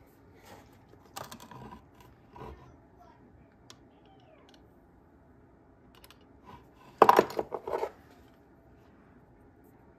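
Light clicks and taps of a brass powder flask and revolver being handled on a wooden bench while a chamber is loaded with black powder. About seven seconds in comes a quick run of louder knocks and metallic clinks.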